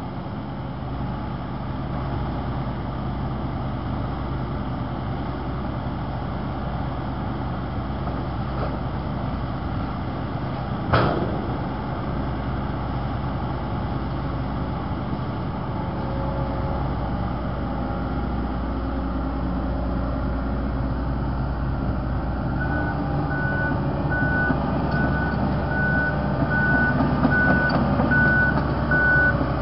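A John Deere excavator's diesel engine runs steadily as it handles steel culvert pipe. About eleven seconds in there is a single loud bang. In the last seven seconds the engine note changes and a backup alarm beeps about two or three times a second.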